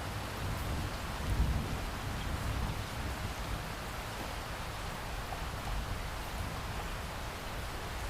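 Steady, heavy rain falling, with low rolling thunder rumbling about a second in and more faintly again later.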